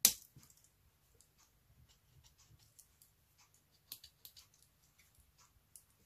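Small metal tools of a Victorinox Swiss Army knife being worked by hand: a sharp snap at the start as a spring-loaded tool clicks home, then a run of faint, irregular clicks and ticks from the small scissors and tools, with a few louder clicks about four seconds in and near the end.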